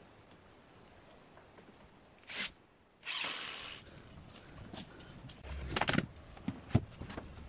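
Wooden planks knocking and clattering against each other and the floor as they are handled and set down, with a few sharp knocks in the second half. A short rush of noise comes a few seconds in.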